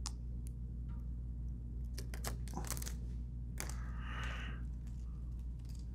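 Adhesive-backed plastic SlipLo skid-guard pieces being handled and their backing peeled off: scattered small clicks and crackles, with a short rasp of peeling about four seconds in, over a steady low hum.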